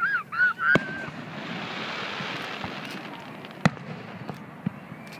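Distant aerial fireworks: a sharp bang a little under a second in and another about three and a half seconds in, with a steady hiss between them and a few smaller pops near the end. Geese honk during the first second.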